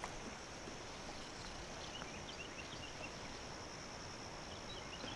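Quiet outdoor ambience: a faint steady high-pitched insect drone, with scattered short, faint bird chirps.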